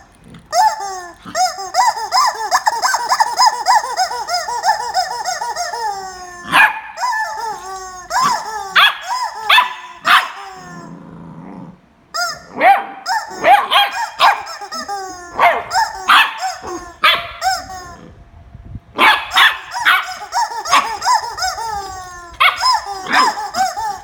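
Welsh corgi puppy barking and yipping in rapid runs of short, high-pitched calls, excited play-barking while it lunges at a toy, with two short breaks.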